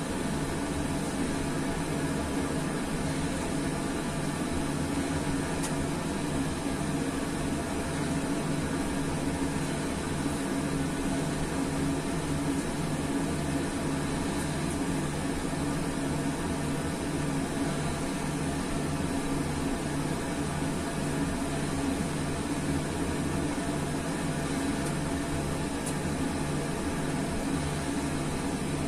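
A five-bell church peal in E-flat, rope-rung, heard from the ringing chamber beneath the bells: many bell tones overlap in one continuous ringing, with an even beat of strokes in the lower bells.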